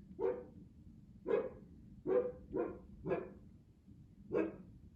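Siberian husky barking: six single, separate barks, spaced unevenly about a second apart, two of them close together in the middle.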